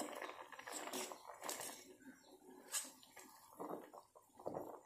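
Faint bubbling of herbal leaves boiling in a steel pot, stirred with a slotted steel spoon, with scattered small clicks.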